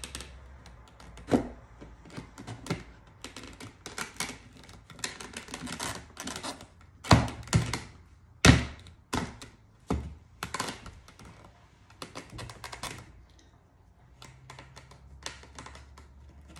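Irregular clicks, taps and knocks of a freshly glued wooden frame being handled and pressed together on a table, with the loudest knocks about halfway through.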